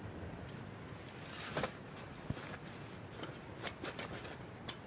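Camping gear being handled on a tent floor: a brief rustle about one and a half seconds in, then a few light clicks and taps as items are picked up and set down.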